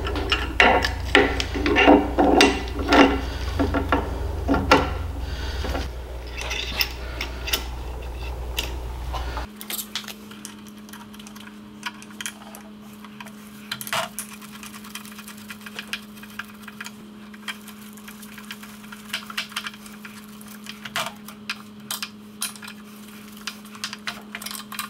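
Small metallic clinks and taps of transmission parts being handled: steel gears, bearings and drive chain knocking against each other and the aluminium case, and a pick or screwdriver tapping metal as the shafts are fitted. The clinks come thick in the first ten seconds and sparser after, over a steady hum that changes to a higher single tone about ten seconds in.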